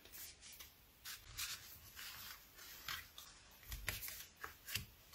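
Cardstock greeting cards being slid across and set down on a craft mat: faint, scattered rustles and light taps.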